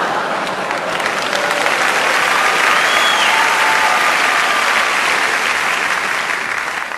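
Live audience applauding steadily in a hall, easing off slightly near the end.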